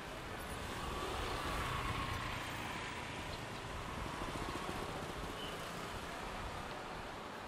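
City street ambience with steady road traffic. One vehicle grows louder as it passes, loudest about two seconds in.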